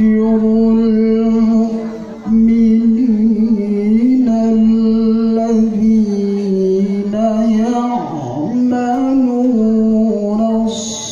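A man's voice reciting the Quran in the melodic, sung tilawah style, amplified through a microphone, holding long ornamented notes with a short break for breath about two seconds in.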